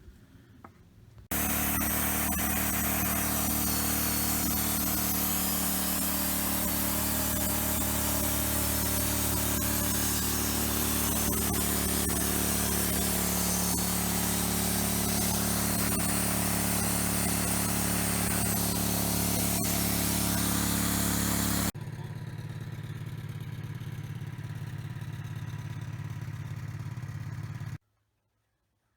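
A sawmill's engine running under load while the saw cuts through a log, with a heavy hiss over the engine. About two-thirds of the way through, the sawing noise stops suddenly and the engine runs on alone, more quietly, until it cuts off near the end.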